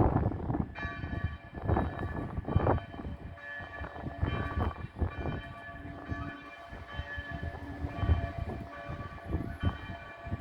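Church bells ringing a call to worship, several bell tones sounding together and held steadily. Gusts of wind buffet the microphone underneath.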